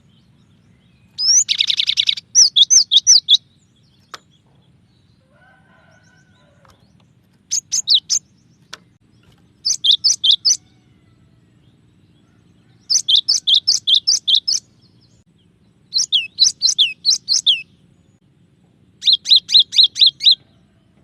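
Cinereous tit (glatik batu) singing: six bursts of fast, repeated high notes, each burst lasting one to two seconds with pauses between them. The first burst opens with a short harsh, buzzy call.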